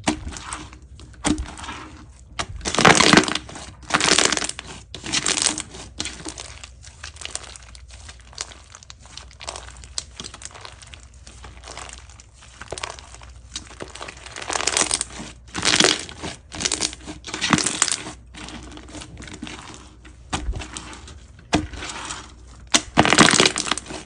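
Thick white slime with small red bits mixed in, pressed, stretched and squeezed by hand. It gives irregular bursts of small pops and crackles a second or two apart.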